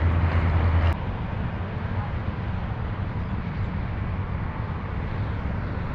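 Steady wind noise on the microphone over open water, with a low rumble that cuts off abruptly about a second in.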